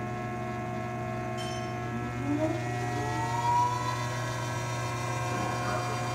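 Ransome 50P-A welding positioner's electric drive motor and gearing running steadily under power as the heavy table tilts, a hum with a whine on top. Partway through a second whine rises in pitch, with a couple of brief louder knocks.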